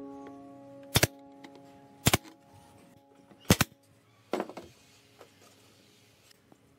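Sharp hammer-like strikes on a workpiece, single blows roughly a second apart, then a quick flurry of lighter knocks, with a low ringing tone lingering after the first blows.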